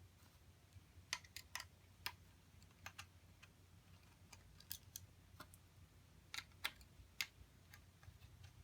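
Faint, scattered sharp clicks and taps at an uneven pace, about one or two a second, over a low steady hum.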